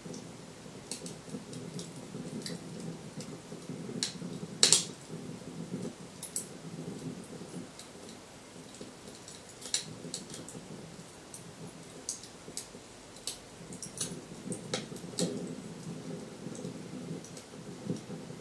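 Recorded wood-fire crackling played through loudspeakers: scattered snaps and pops over a steady low background, with one loud pop a little under five seconds in. The bioethanol fire itself is silent; this is a looped fire sound effect.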